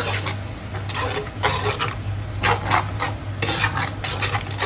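Spatula scraping and stirring blended spice paste (onion, ginger, galangal, lemongrass, garlic and shrimp paste) as it is sautéed in a pan, in short irregular strokes about two a second, over a steady low hum.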